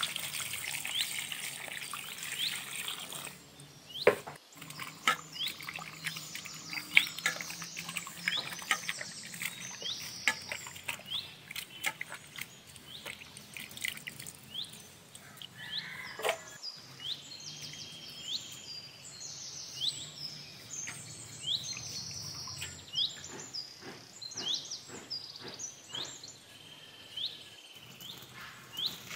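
Water pouring from a jug over sliced raw potatoes in a steel colander for the first few seconds, then scattered drips and splashes into a bowl of water. Small birds chirp over and over, short high calls, thickest in the second half.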